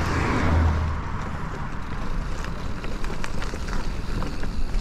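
Mountain bike riding over a rough, rooty forest trail: steady tyre and rolling noise with scattered knocks and rattles from the bike.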